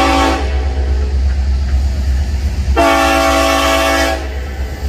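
Union Pacific 1943's SD70ACe five-chime air horn blowing for a grade crossing: the tail of one long blast ends about half a second in, then a short blast of just over a second follows, over the low rumble of the approaching train.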